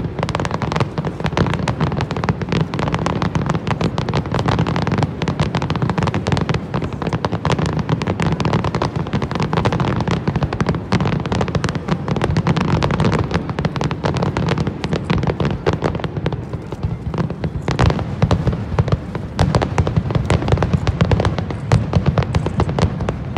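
Finale barrage of aerial fireworks shells bursting over the water in rapid, overlapping succession: an unbroken stream of bangs and crackling over a heavy low rumble, with sharper, louder bangs near the end.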